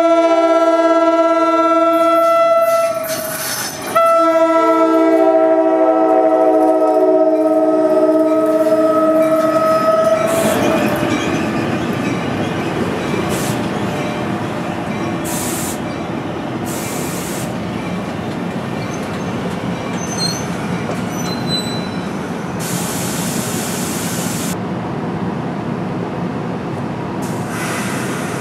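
Commuter train locomotive's air horn sounding a chord, broken off briefly about three seconds in, then held again until about ten seconds in. The train then rolls past with a steady rumble and the clatter of wheels over rail joints.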